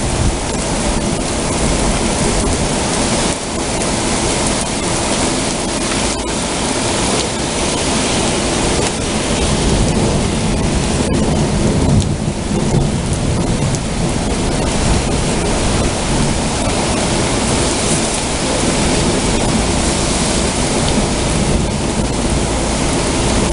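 Heavy rain pouring steadily in a thunderstorm, with low rumbling thunder underneath.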